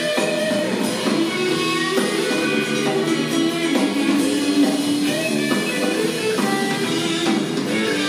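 Live rock band playing: electric guitar and electric bass over a drum kit, at steady full volume.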